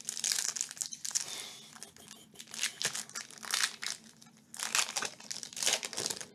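Topps Chrome baseball card pack wrappers being crinkled and torn open by hand: irregular crackling and rustling, in bursts of varying loudness.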